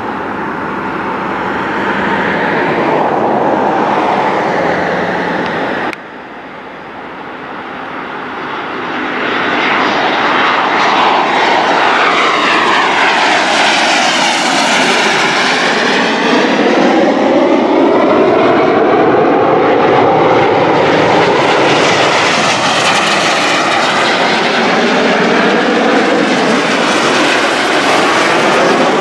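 A formation of small jet aircraft taking off together at full power, a loud steady jet roar. About six seconds in the sound drops suddenly, then swells back up as the jets climb out and pass overhead, with a sweeping, phasing whoosh that rises and falls in pitch.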